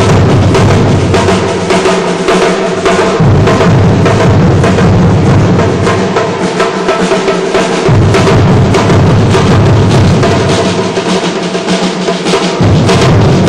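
Batucada percussion group playing painted barrel drums with sticks: a fast, dense, unbroken samba rhythm. The deepest drum part drops out and comes back every few seconds.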